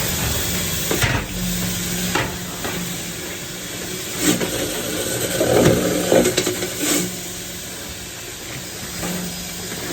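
Dryer vent cleaning equipment running: a steady rush of air with a low motor hum, and scattered knocks and rattles inside the vent duct, busiest around the middle.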